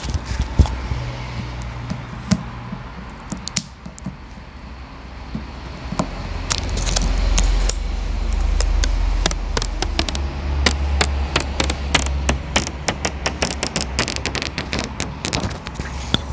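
Handling noise of a clip-on lavalier microphone held right against a new smartphone, then, from about six seconds in, a dense crackling of the thin protective plastic film being peeled off the screen, over a low rumble from the mic being handled.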